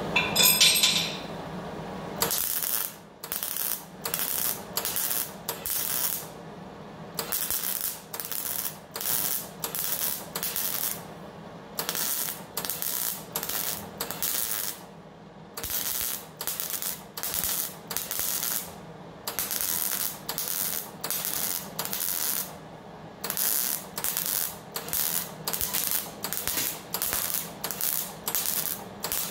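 MIG welder stitching sheet-steel body panel: dozens of short crackling weld bursts, about one a second, each a tack laid along the panel seam, with brief pauses between runs. A louder noise with a high whine fills the first two seconds before the welding starts.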